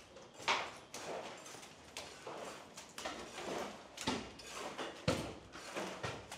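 Footsteps climbing bare, unfinished concrete stairs strewn with grit: irregular scuffing steps about once a second.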